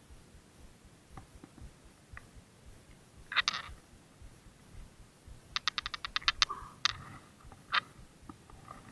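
Sharp clicks and ticks of fishing tackle and line being handled while a grouper is unhooked, with a quick run of about ten clicks around six seconds in and a few single clicks after.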